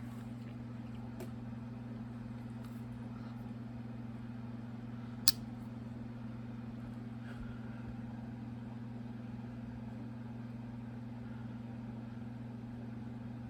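Steady low hum of room background noise, with a single sharp click about five seconds in.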